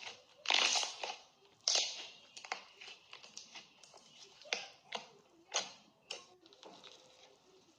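Slime being squished and worked by hand: a run of short, irregular wet squelches and pops, the loudest in the first two seconds.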